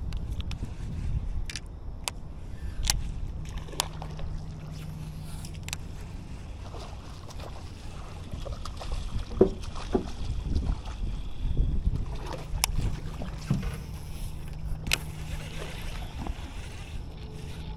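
Low rumble of wind and water on the microphone of a kayak, with scattered sharp clicks and a low steady hum that comes in twice, briefly a few seconds in and again through the second half.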